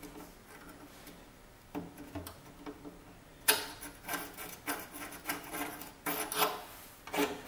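A hand tool scratching short marking strokes on the planer's plastic housing, marking where a hole is to be drilled. A few faint strokes come about two seconds in, then a quicker run of strokes from about halfway to near the end.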